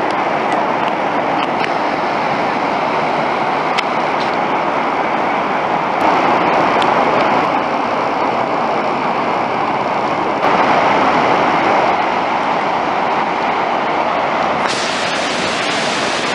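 Steady rushing of the Iguazú Falls in flood: a huge volume of water pouring over the cliffs. The sound is a dense, even noise that jumps in level and brightness a few times.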